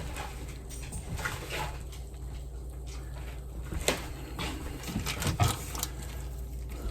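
Soft kitchen handling noises while a burrito is folded by hand: scattered rustles and light clicks, one sharper click about four seconds in, over a steady low hum.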